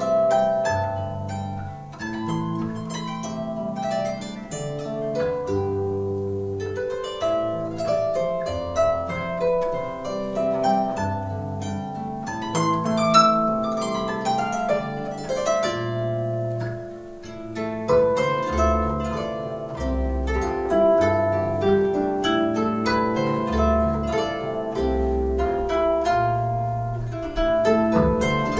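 Solo Celtic harp being played: a plucked melody and chords ringing over deep bass notes, with a quick run up the strings about halfway through.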